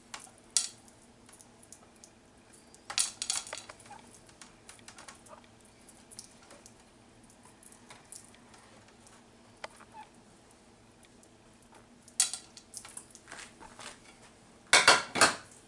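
Scattered clinks and taps of kitchenware being handled, a china plate and a foil baking pan, in a few short clusters, the loudest near the end. A faint steady hum runs underneath.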